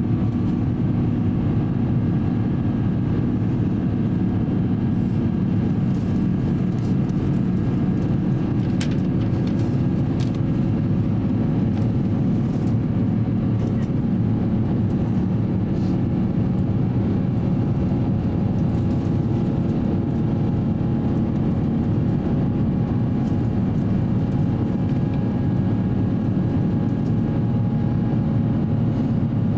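Steady cabin drone inside an Airbus A350-900 airliner during climb-out: the Rolls-Royce Trent XWB engines and rushing air, low and unbroken, with a few faint clicks in the cabin.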